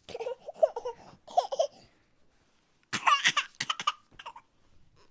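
Laughter-like voice sounds in short bursts: two lower bursts in the first two seconds, then a louder, higher burst about three seconds in.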